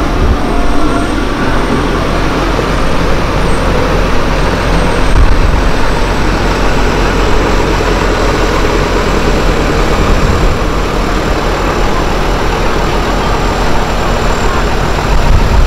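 Diesel engines of JCB construction machines (telehandler, tracked excavator and backhoe loader) running, a loud, steady mechanical rumble.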